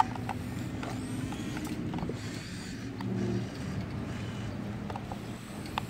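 Small electric gear motors of a radio-controlled toy excavator whirring steadily as the arm and bucket move, with a few sharp clicks; the whir grows louder for a moment about three seconds in.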